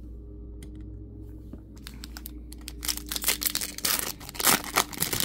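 Foil wrapper of a Topps Chrome baseball card pack torn open by hand, crinkling and crackling. It starts about two seconds in after a few light clicks and is loudest near the end.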